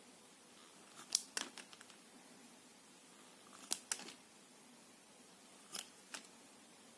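Knife cutting through soft soap: three pairs of short, crisp clicking cuts about two seconds apart.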